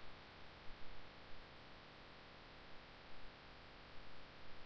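Faint steady hiss and low hum of a recording microphone's background noise, with a few faint brief ticks.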